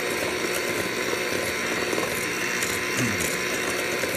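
Electric hand mixer running steadily, its beaters whipping eggs with sugar in a stainless steel bowl as the sugar is added little by little, beating air into the mixture.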